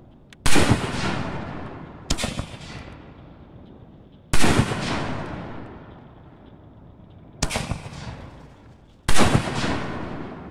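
Canister-shell fireworks being fired and bursting: five sharp booms, unevenly spaced, each trailing off in a long rolling echo.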